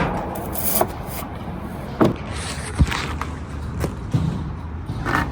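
Scattered sharp knocks and clunks, about half a dozen, over a steady low rumble.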